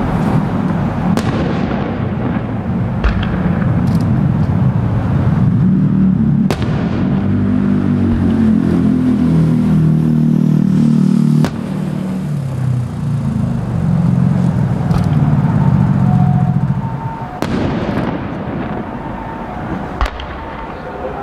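Aerial fireworks: sharp bangs of shells bursting, several in the first seven seconds and two more near the end, over a continuous low rumble.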